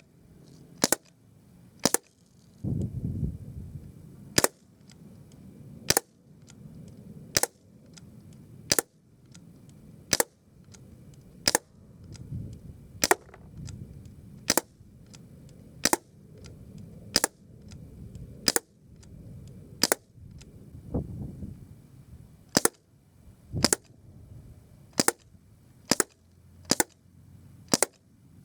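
BB gun fired shot after shot at a steady pace, about one sharp crack every second or so, some twenty shots in all.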